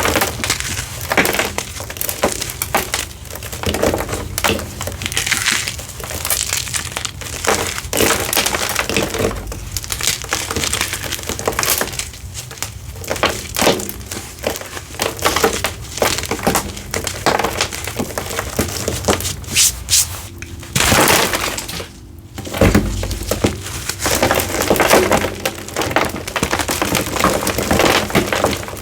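Hard, flaky gym chalk, reformed after soaking in citric acid and over-dried, being crushed and broken apart, with crisp crunching and cracking throughout.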